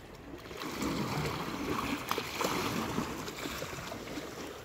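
Seawater sloshing and lapping, with a few light splashes; it swells about a second in and eases off toward the end.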